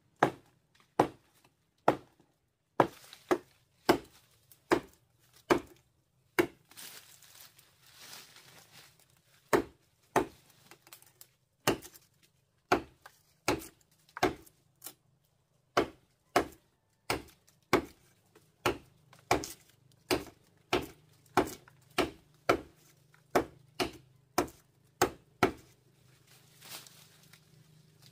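Steady chopping with a blade, sharp strokes about one every three-quarters of a second, with a few seconds of rustling in place of strokes about a third of the way through.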